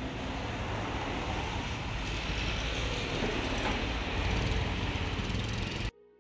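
Steady outdoor street noise, a low rumble with hiss, such as passing traffic. It cuts off abruptly near the end.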